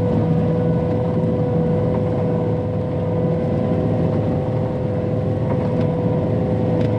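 Cat tracked skid steer's diesel engine running steadily under load while pushing snow, with a steady whine held over the engine hum.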